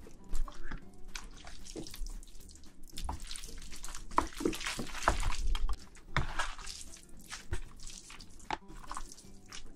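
Chopsticks mixing noodles into thick jajangmyeon black bean sauce, making irregular wet, sticky squelches and small clicks.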